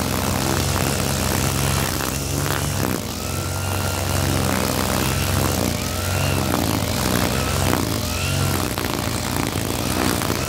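Backpack brush cutter's small engine running at cutting speed, its high whine dipping and recovering every couple of seconds as the spinning nylon-line head is swung through grass.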